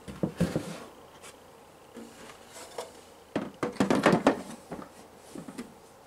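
Plastic water tank and base of a Hunter 32500 evaporative humidifier knocking and clattering as the tank is fitted into the base. There are a few light knocks near the start and a louder cluster of clunks a little past the middle.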